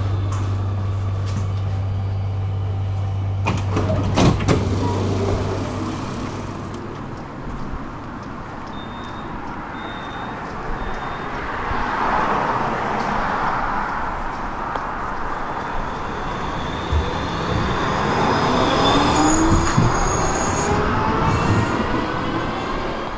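Tram standing at a stop with a steady electrical hum, its sliding doors knocking shut about four seconds in. It then moves off, with wheel-on-rail running noise and a rising traction-motor whine as it speeds up, heard from inside the car.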